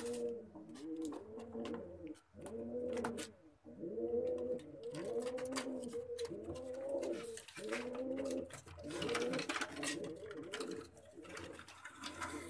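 Domestic pigeons cooing over and over in low, rising-and-falling coos, in runs with short pauses, with scattered sharp clicks and rustles.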